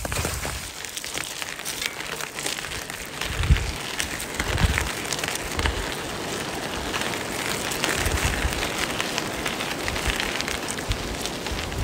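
Steady fine crackling patter of many small ticks, like light rain, with a few short low bumps.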